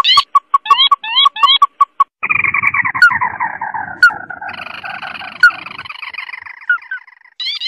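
Lure-call recording of a crake, the 'tikusan mata merah': a few quick rising notes, then from about two seconds in a long, descending, rattling trill that turns buzzy and fades out around six seconds, with rising notes again near the end.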